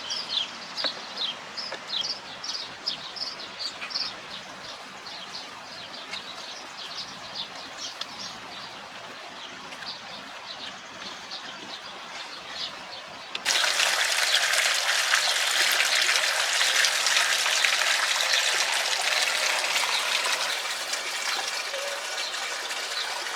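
Small birds chirping rapidly and repeatedly for the first few seconds over a quiet outdoor hush. Just past halfway, a loud steady rushing hiss cuts in abruptly and continues.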